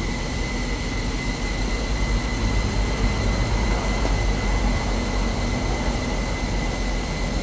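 Steady low rumble of background noise, with a faint, steady high-pitched whine held throughout.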